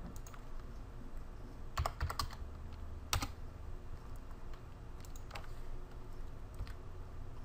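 Computer keyboard keys clicking: a quick run of about three keystrokes about two seconds in, as a number is typed into a web form field, then a few single clicks spaced a second or two apart.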